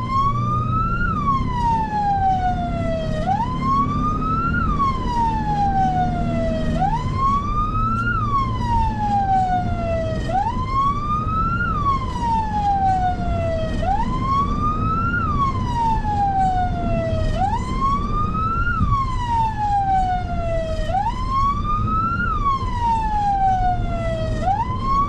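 Emergency vehicle siren wailing, each cycle rising quickly in pitch and then falling slowly over about three seconds, repeating steadily, over a low rumble.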